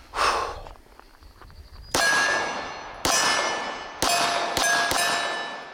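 Walther PPK/S .380 pistol fired five times at steel targets, each shot followed by the ringing clang of the struck steel plate. The first shots come about a second apart, with the last three closer together near the end, and a brief rush of noise comes just after the start.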